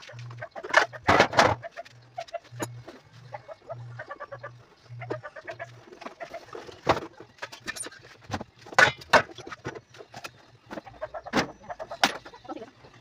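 Boxes, metal pans and plastic tubs being lifted and set down, giving irregular knocks and clatters, the loudest near the start and in the second half.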